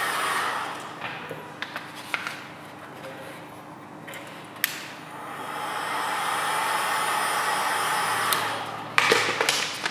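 Heat gun blowing air to soften vinyl wrap film, in two stretches: the first fading out about a second in, the second from about five to nine seconds in. Sharp crackles and clicks of the vinyl film being handled come in between and in a cluster near the end.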